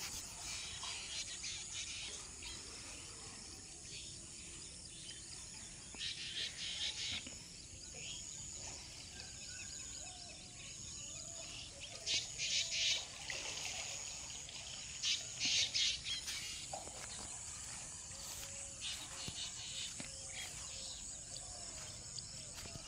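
Rural outdoor ambience: a steady high-pitched drone of insects with birds calling, and a few short, louder bursts of chirping about six, twelve and fifteen seconds in.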